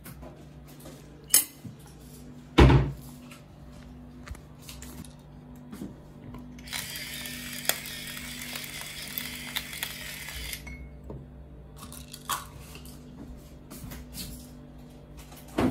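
Household kitchen noises: a sharp knock and then a louder dull thump early on, a hiss lasting about four seconds in the middle, and scattered light clicks over a steady low hum.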